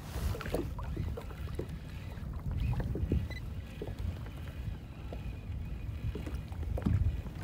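Choppy sea water lapping and slapping against a kayak's hull, with irregular small knocks, over a low rumble of wind on the microphone.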